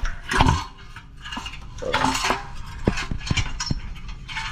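Metal exhaust parts and hand tools clanking and clinking as they are handled: a heavier knock about half a second in, then several lighter clinks.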